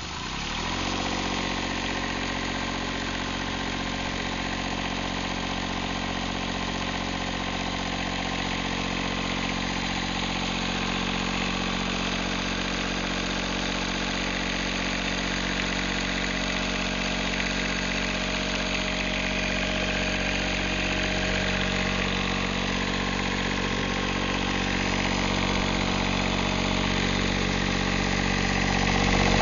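Westerbeke 7.6 BTD diesel marine generator catching from cranking within the first second, then running steadily at a constant speed.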